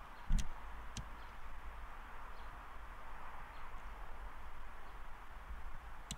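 Steady outdoor background hiss with a low rumble of wind on the microphone. There are a few short clicks: a louder knock with a low thump about half a second in, a lighter click a second in, and another right at the end.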